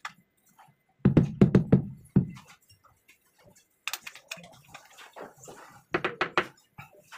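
Rubber mallet tapping a large ceramic wall tile, bedding it into its adhesive: a quick run of knocks about a second in and another near the end, with fainter scraping and clicking in between.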